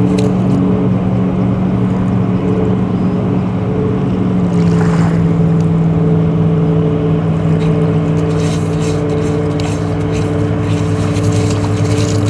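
An engine running steadily with a low drone that steps down in pitch about four and a half seconds in. In the second half come short clicks and scrapes from a dog's paws digging in wet sand.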